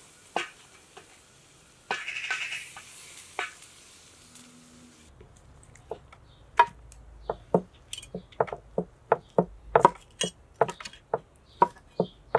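A wooden spoon scrapes through vegetables in a pan over a wood fire, with a short sizzle. Then a cleaver chops through cooked pumpkin onto a wooden board in sharp, regular knocks, about two a second.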